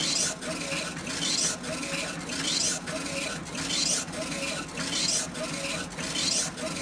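Funsun DTF printer's print-head carriage shuttling back and forth across the film while printing, a hissing whir on each pass that repeats about every 1.2 seconds, with a short pause at each reversal.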